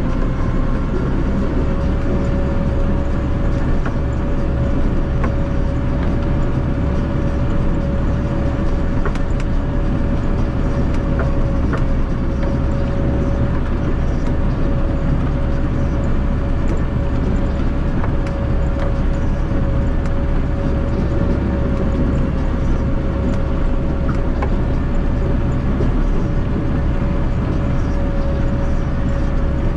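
Massey Ferguson 5445 tractor's 4.4-litre Perkins common-rail diesel running steadily, with a steady high whine over the engine note that rises a little at the start.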